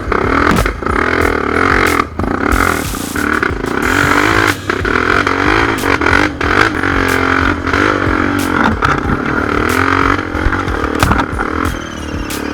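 Honda XR250 Tornado's single-cylinder four-stroke engine revving up and down under load on a climb, its pitch rising and falling constantly. Sharp knocks and clatter come through repeatedly.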